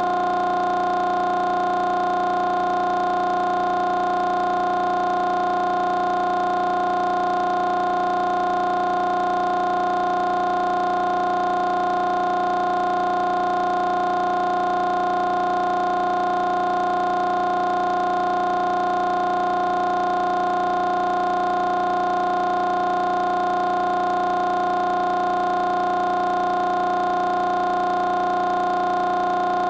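A steady drone of several held tones that does not change in pitch or loudness.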